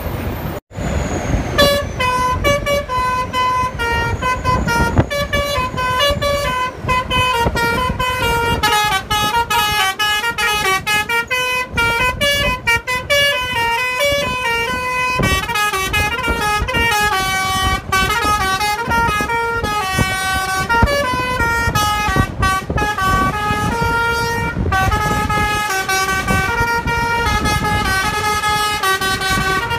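Indonesian bus telolet horn, a set of musical air horns, playing a fast tune of stepped notes with several tones sounding together. It starts after a brief break near the start.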